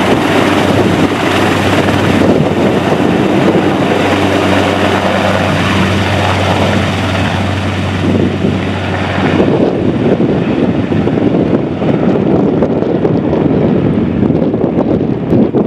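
AH-1Z Viper attack helicopter flying past and away, its rotor and turbine sound blended with heavy wind on the microphone. A steady low hum runs under it and stops about nine seconds in, after which the sound turns duller.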